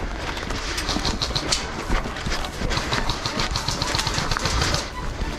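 Footsteps and rustling through dry grass and weeds, heard as a dense run of quick, irregular crackles and ticks.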